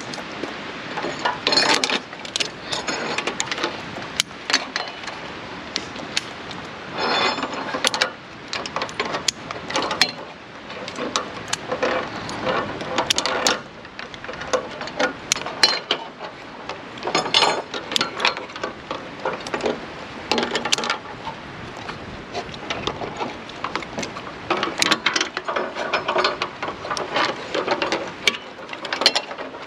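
Metal climbing gear clinking and rattling in irregular bursts: the Vert Voltige continuous-belay trolley and carabiners sliding and knocking on the steel lifeline cable and the aluminium ladder.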